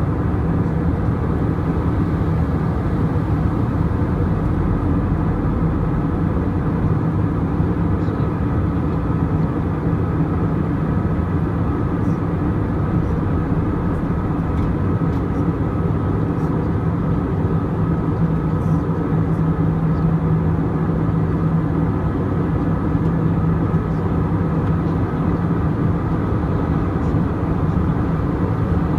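Steady cabin noise of a jet airliner in flight: an even rush of engine and airflow noise with a constant low drone.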